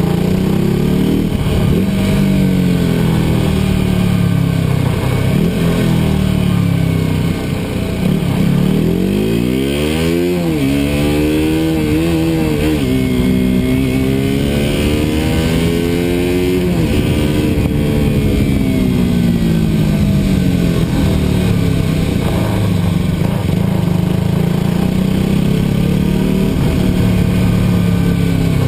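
KTM RC200's single-cylinder four-stroke engine running as the bike rides. It holds steady revs, then about nine seconds in the revs climb sharply in a few rising steps. They hold briefly, then fall away again around seventeen seconds and settle back to a steady pull.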